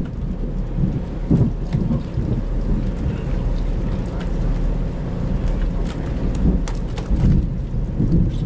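Heavy rain falling on a fishing boat, with scattered sharp drop ticks over a steady low rumble.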